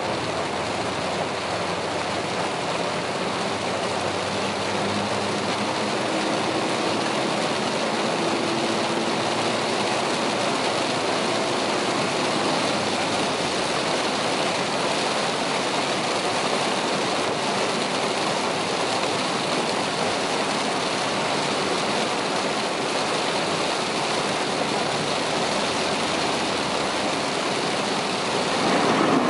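Heavy rain on a moving car and tyres hissing on a wet road, heard as a steady loud wash from inside the cabin at expressway speed. A brief louder surge comes near the end.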